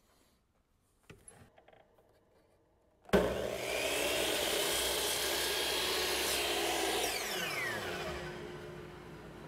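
A few faint knocks from wood being handled, then a power saw switched on about three seconds in. It runs steadily while cutting small wooden turnings at a 10-degree angle, then is switched off and spins down with a falling whine.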